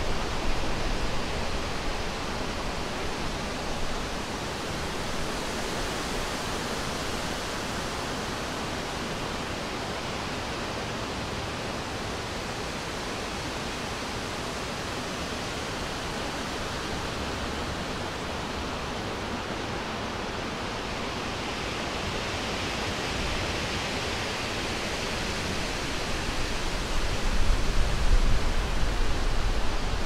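Summer wind blowing through forest trees: a steady rushing noise that swells into a stronger gust with a low rumble near the end.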